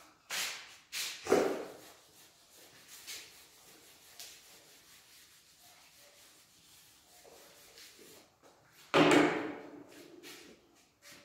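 Marker rubbing and squeaking on a whiteboard during writing, with a few short louder noises near the start and a longer loud one about nine seconds in.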